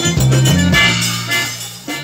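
Live forró band music with accordion over bass and drums, fading out in the second half as the song ends.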